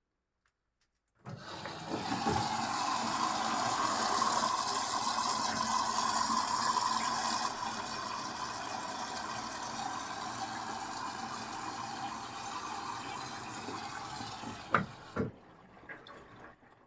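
Indesit washing machine taking in water: the inlet valve opens suddenly and water rushes through the detergent drawer steadily, easing a little about halfway. The flow stops about fifteen seconds in, with two sharp clicks.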